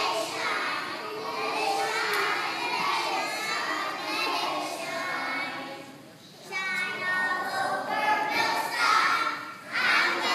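A group of preschool children singing together, with a short break about six seconds in before the voices come back.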